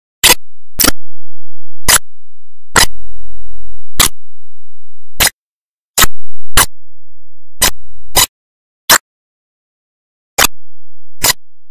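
A series of about a dozen short, loud clicks at irregular intervals, roughly one a second, with silence between them.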